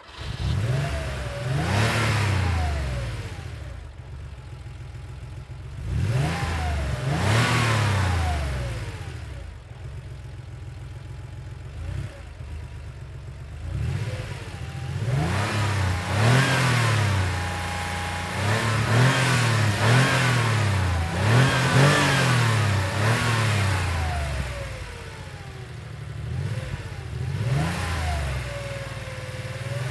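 1990 Porsche 911's air-cooled flat-six idling just after starting, blipped by the throttle: two single revs early on, then a run of short revs about a second apart in the middle, and another rev near the end.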